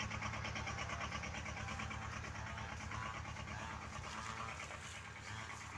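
Brush cutter engine running steadily at a distance, a constant buzzing hum with a fast, even pulse.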